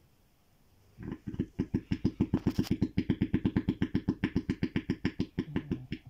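A young rescued animal snoring contentedly: a fast, even throbbing of about nine pulses a second that starts about a second in.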